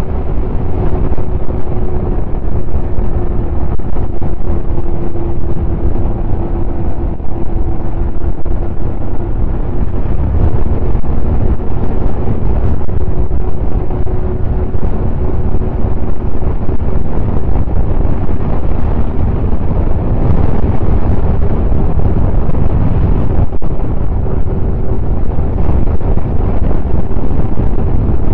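Snowmobile running at a steady cruising speed along a groomed trail, its engine holding a near-constant pitch, with wind buffeting the microphone.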